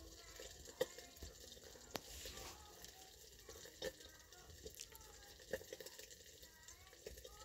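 Metal ladle stirring chicken pieces in an iron wok, clinking and scraping against the pan several times, the sharpest clink about a second in.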